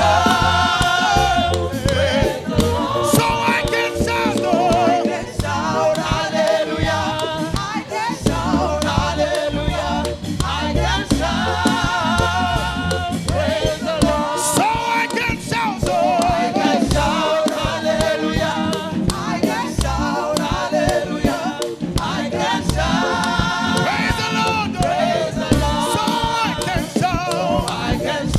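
Gospel praise music: a choir singing over instrumental accompaniment with a steady beat.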